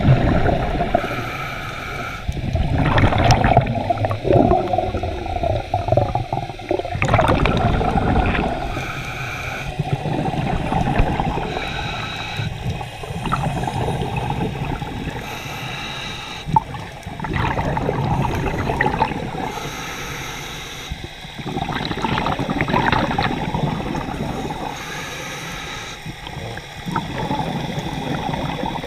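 Scuba diver's regulator breathing underwater: bursts of exhaled bubbles gurgling about every four to five seconds, with quieter inhalations between.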